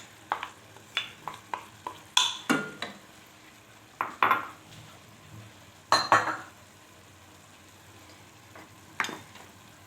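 A cooking utensil stirring seafood, peppers and mushrooms in a pan, with irregular knocks and scrapes against the pan. The loudest come about two, four and six seconds in. A light sizzle of frying runs underneath.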